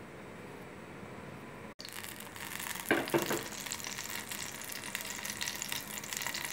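Oil heating in a pan for tempering: a faint steady hum at first, then, a little under two seconds in, sizzling and crackling that is loudest about three seconds in and keeps going.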